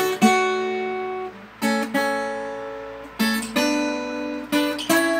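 Acoustic guitar playing the instrumental ending of a sertanejo song after the singing has stopped. Several separate strummed chords are each left to ring and die away.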